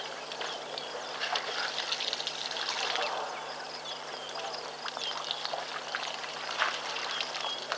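African elephants drinking at a waterhole: water trickling and splashing as they draw it up in their trunks and pour it into their mouths, with many small drips and clicks.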